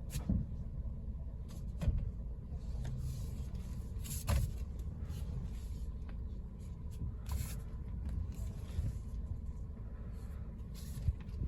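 Car steering making a few sharp knocks, spaced irregularly, as the wheel is turned left, over the steady low hum of the idling engine.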